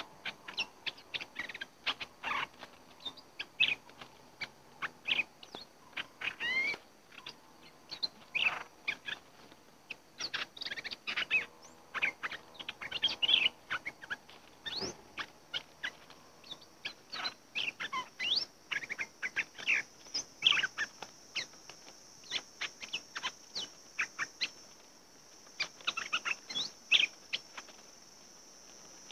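Bulbuls calling in short, quick chirping notes that sweep up and down, dozens of them in rapid, irregular runs. A steady high-pitched buzz runs underneath, louder in the second half.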